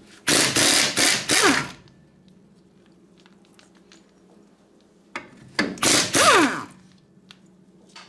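Cordless impact gun run in two bursts of about a second and a half, one at the start and one about five seconds in, each ending with the motor's whine falling as it spins down. It is undoing the bolts that hold the drum-brake backing plate to a VW Super Beetle's front spindle.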